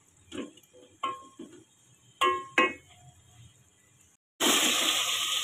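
A wooden spoon stirring chicken curry in a metal pot, knocking against the pot in a few scattered clinks, the loudest two a little past two seconds in. About four seconds in, a steady, much louder sizzle starts: the masala frying in the oil it has released.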